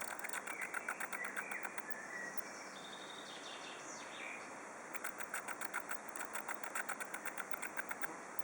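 Rapid, even clicking from a spider, about five clicks a second, that the uploader says grew louder the more the spider was provoked. The clicking stops about a second in and starts again near the middle. In the gap, bird chirps are faintly heard.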